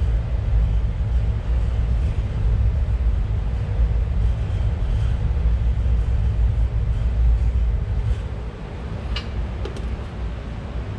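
Steady low rumble that eases off about eight seconds in, then a few light clicks: a wrench tightening threaded fittings into an air tank.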